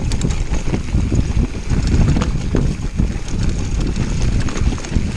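Wind rushing over the action camera's microphone and tyres rolling on a dirt trail during a fast mountain-bike descent, with irregular rattles and knocks from the bike over bumps.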